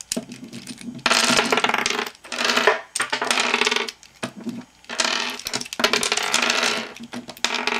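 Hard plastic pieces of a Holey Megaminx puzzle clicking and clattering as they are pried out of the puzzle by hand and set down on a wooden table, in several bursts of rattling with short pauses between.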